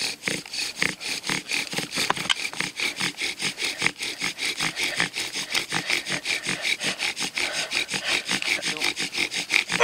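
Friction-fire bow drill worked fast: the wooden spindle rasping in the hearth board in a quick, even rhythm of strokes, several a second, grinding out hot dust for an ember.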